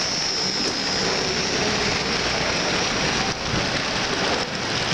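American Flyer S-gauge model freight train rolling past: a steady clattering rush of metal wheels on the track from a long string of hopper and freight cars, with a high whine that fades about a second in as the steam locomotive moves away.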